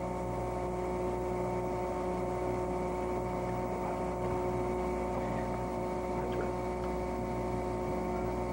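Steady electrical hum made of several fixed tones over a constant hiss, with no speech.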